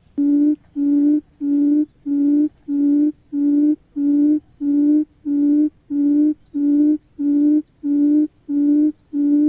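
Quail lure call at the trap: a low hooting note repeated about twice a second, each note the same steady pitch, starting suddenly and keeping an even beat.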